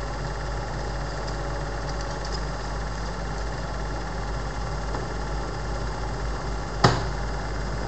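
Bauer T192 Automatic Duoplay Super 8 projector running steadily, its motor and mechanism making a constant mechanical noise, with one sharp click about seven seconds in.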